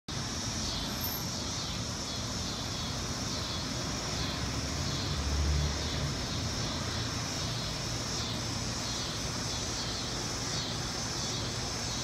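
Cicadas buzzing in a steady high-pitched chorus that swells and dips a little, over a low traffic rumble; a vehicle rumbles past about five seconds in.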